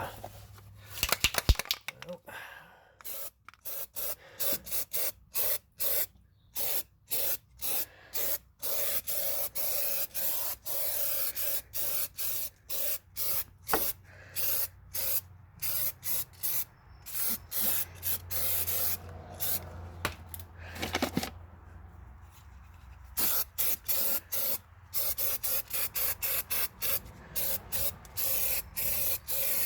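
Bed liner coating being sprayed in many short hissing bursts, about one or two a second, with a longer pause about two-thirds of the way through.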